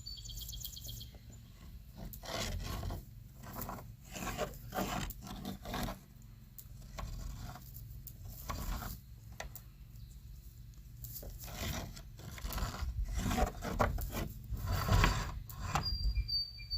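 Irregular rubbing and scraping strokes, in bunches with short pauses, from hand work on the wooden coop wall as the door is held level against it. A steady low rumble lies underneath.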